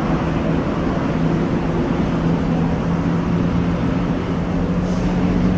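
Steady low engine drone with a hum that steps up slightly in pitch in the second half.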